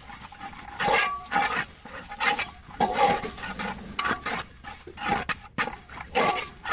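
Metal ladle scraping and stirring a thick chilli-and-turmeric masala around the bottom of a large metal pot, in a run of scraping strokes about two a second. The spice paste is being mixed into hot coconut oil and fried.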